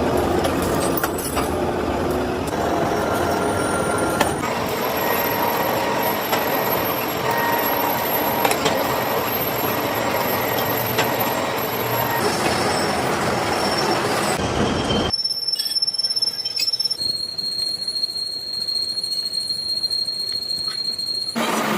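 Metal being machined in a workshop: dense grinding, cutting noise with thin squealing tones, changing abruptly several times as if cut between shots.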